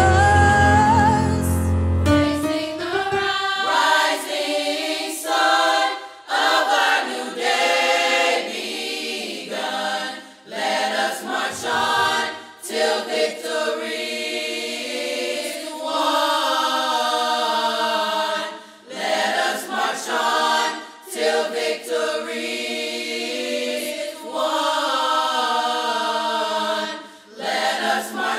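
Mixed high-school concert choir singing a gospel-style hymn in full harmony. The low accompaniment drops out about two seconds in, and the choir goes on unaccompanied in long held phrases with brief pauses between them.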